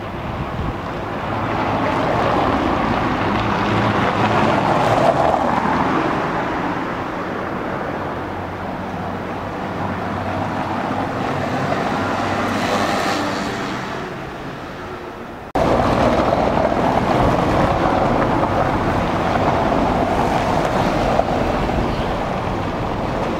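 Street traffic noise: the steady rumble of engines and tyres on a cobbled road with a low hum, swelling as a car passes about 12 seconds in. About 15 seconds in the sound cuts abruptly to a louder, steady rumble.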